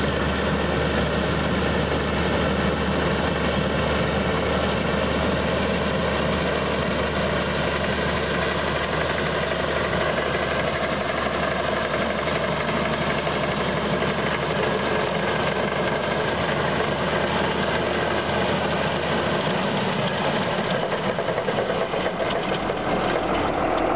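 Ford Commander 6000 tractor's six-cylinder engine running steadily under load, pulling a New Holland haybine as it mows hay.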